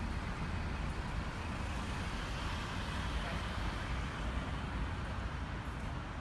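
Steady road traffic noise: a constant wash of passing cars with a low rumble underneath.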